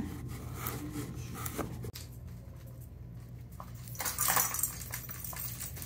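Kittens batting a plastic ball-track cat toy: light clicks and plastic rattling, with a brief burst of clattering about four seconds in.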